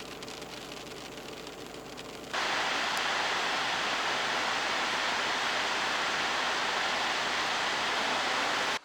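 Steady rushing of fast white water, starting abruptly about two seconds in over a fainter hiss, and cutting off sharply near the end.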